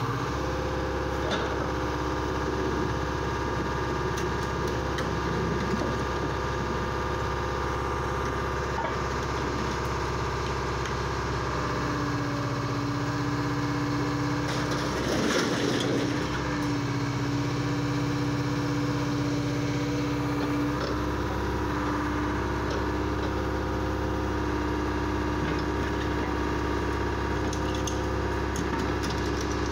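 Diesel engine of a wheeled scrap-handling excavator running steadily close by, its pitch shifting for a stretch in the middle as the machine works, with a short burst of noise about halfway through.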